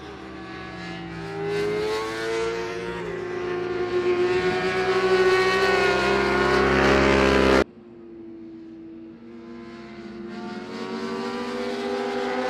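Racing superbike engines at high revs as bikes pass on track. The engine note climbs in pitch and grows louder, then cuts off abruptly about seven and a half seconds in. Another bike's engine then starts quieter and rises in pitch again toward the end.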